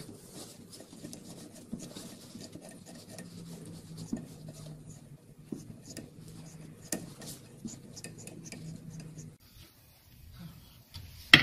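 Faint rubbing and scraping as wire-mesh sieve cloth is handled over a stainless lab sieve frame, with small metal clicks from a screwdriver at the band clamp around the frame. A sudden loud knock comes at the very end.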